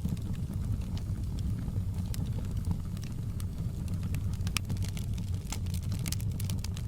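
Wood fire burning in a fireplace: a steady low rumble with scattered sharp crackles and pops from the logs, the crackles coming thicker near the end.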